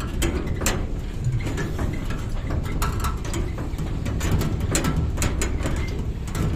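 Ride on the back of a moving tempo, a small goods vehicle: a steady low rumble of wind on the phone's microphone and the vehicle running, with frequent sharp rattles and knocks.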